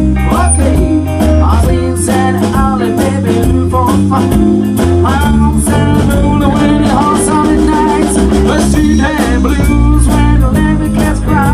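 Small rock band playing live: electric bass, drum kit and electric guitar, with a wavering melodic lead line over a steady groove.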